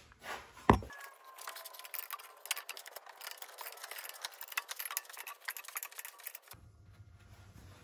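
Metal hand tools and the balancer installation tool on the crankshaft snout: one sharp metal knock just under a second in, then several seconds of light, irregular metallic clicking and clinking as the tool is put back on.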